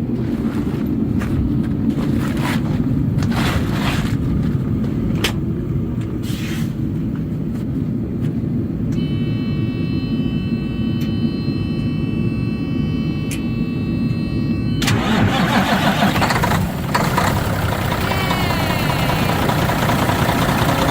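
Freightliner semi truck's diesel engine starting and running on its new battery, cable and starter, firing up without a jump start. A steady warning buzzer sounds for about six seconds midway, and the engine sound grows louder and fuller about fifteen seconds in.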